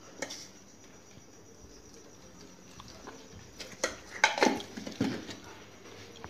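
Hand mixing fermented idli batter in a steel bowl: after a quiet stretch, a few short soft knocks and slaps come close together about four seconds in.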